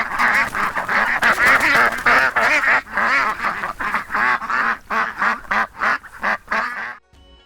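Duck quacking: a rapid run of repeated nasal quacks, several ducks calling over one another, stopping about a second before the end.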